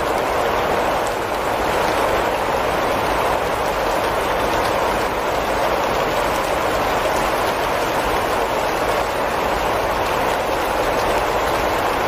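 Steady rain falling on tree leaves: an even, unbroken hiss.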